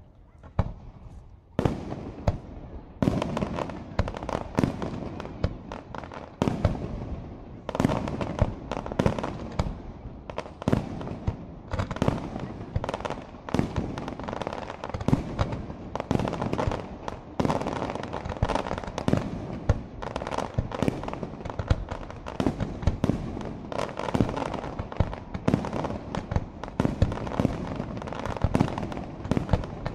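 Aerial fireworks shells bursting in a rapid, dense barrage of overlapping bangs, several a second. The barrage starts after a short lull about a second and a half in.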